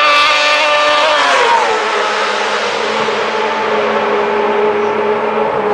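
Two racing sidecar outfits' 600cc four-cylinder engines at high revs, passing close at full speed. Their pitch drops sharply a little over a second in as they go past, then a lower engine note holds as they draw away.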